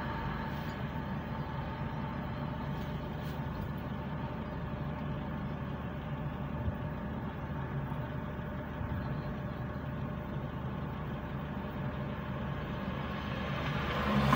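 Car engine idling steadily, heard from inside the stationary car's cabin. Near the end, another vehicle's noise grows louder as it approaches.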